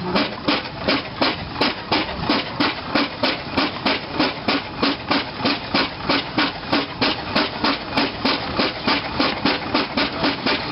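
Fowler steam ploughing engine working its winch, its exhaust beating steadily at about three chuffs a second.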